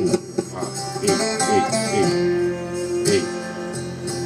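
Guitar music playing through a Mondial CM500 amplified speaker fed over Bluetooth; the speaker is working again after a burnt resistor was replaced.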